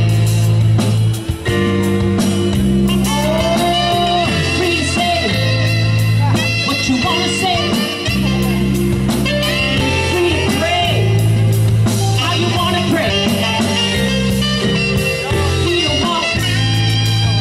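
Live jazz band playing a song: saxophone, drums, keyboards and a steady bass line, with a woman singing into a microphone over part of it.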